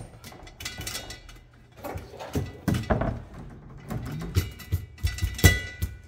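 Steering cables knocking and scraping inside an Edson steering pedestal as they are pulled up through it: a string of irregular clunks with brief ringing, loudest about five and a half seconds in.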